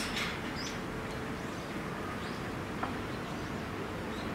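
Steady background noise with a few faint, short bird chirps and a couple of light clicks.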